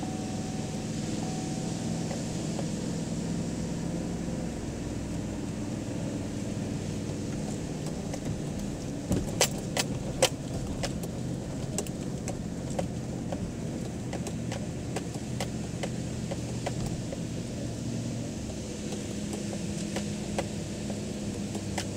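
Chevrolet Silverado pickup driving on beach sand, heard from inside the cab: a steady engine and tyre drone. A few sharp clicks and rattles come about nine to ten seconds in, with a couple more later.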